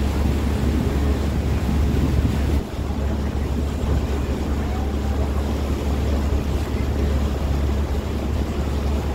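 A boat's motor running steadily under way, a constant low rumble, with wind buffeting the microphone.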